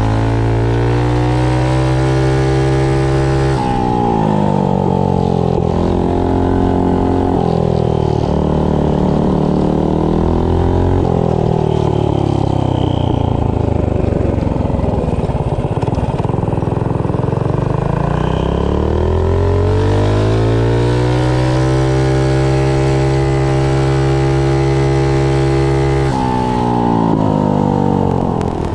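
Predator 212 single-cylinder four-stroke engine, fitted with a performance cam and 22 lb valve springs, running a minibike on the road. It holds steady, drops in pitch as the bike slows, then climbs back up and holds again, with a brief dip and rise near the end.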